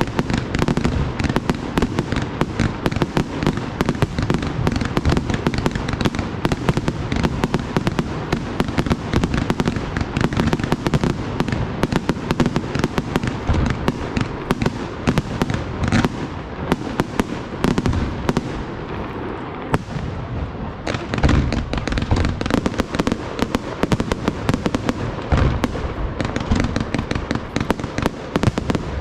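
Professional fireworks display in a dense, continuous barrage of rapid cracks and bangs, with heavier booming bursts about halfway through and again a little later.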